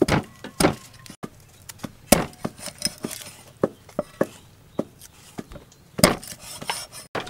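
Cleaver chopping small whole fish into pieces on a thick wooden chopping block: a series of sharp knocks of the blade going through the fish into the wood, at an uneven pace of about one to two chops a second.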